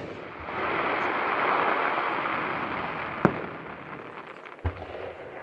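Fireworks going off: a crackling hiss swells for a couple of seconds and fades, with a sharp bang about three seconds in and a lower, duller boom near the end.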